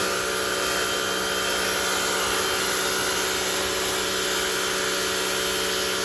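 Rock&Rocker HWY12 high-pressure washer running steadily: its pump motor gives a steady hum under the hiss of the water jet spraying onto concrete.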